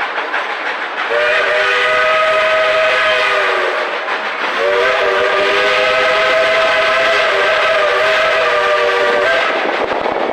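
Steam locomotive whistle on the Dollywood Express blowing two long blasts, several tones sounding together as a chord; the second blast is nearly twice as long as the first. The train rumbles along underneath.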